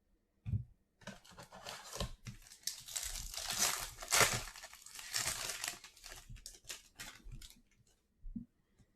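Foil wrapper of a trading-card pack being torn open and crinkled, the tearing loudest in the middle, with a soft knock about half a second in and another near the end.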